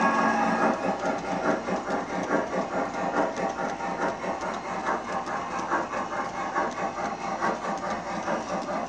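MTH G scale model steam train running on the track: a steady rhythmic clatter of wheels and sound-system steam chuffing, about two beats a second. A steam whistle blast ends within the first second.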